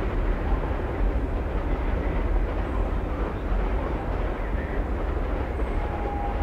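Passenger train coaches rolling across a steel girder bridge: a steady rumble of wheels on rail.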